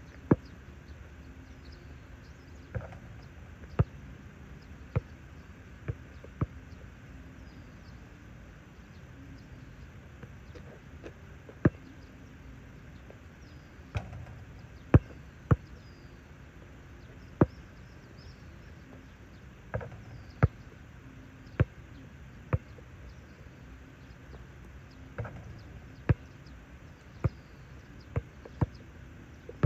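A basketball bouncing on an outdoor asphalt court. There is a sharp smack every second or so, in places two in quick succession, and after a shot the ball strikes the hoop.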